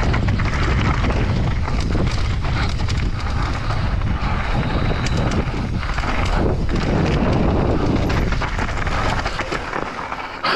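Wind rushing over the camera microphone and a mountain bike's knobby tyres rolling fast over dirt and loose rocks, with the bike clattering over bumps. It eases near the end as the bike slows.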